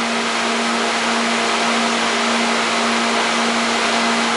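Steady machine noise: a motor running without change, a constant low hum under an even hiss.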